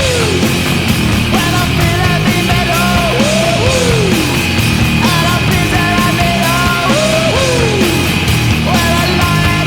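Loud hard-rock goal song with a steady beat and repeating sliding melodic lines, played as a hockey goal celebration.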